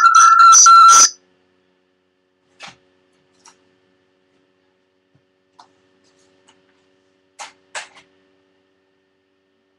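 Electronic keyboard music that cuts off abruptly about a second in, followed by near silence with a few faint clicks.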